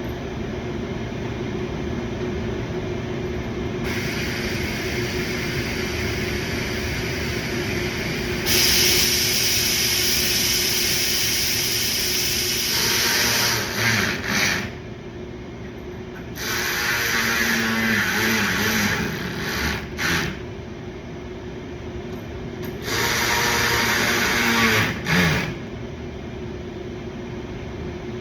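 Power tool whirring in three runs as it drives the bumper fasteners: one of about six seconds starting some eight seconds in, then two shorter ones, each stopping abruptly. A steady shop hum underneath.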